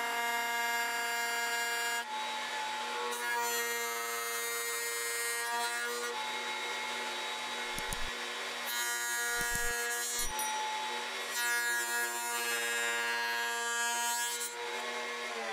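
Table-mounted router with a bearing-guided flush-trim bit running at speed, its whine changing every few seconds as it cuts a stacked wooden leg blank to a glued-on template, with a couple of brief low knocks around the middle.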